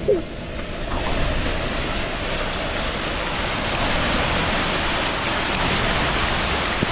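Heavy tropical rain pouring down, a steady, even hiss.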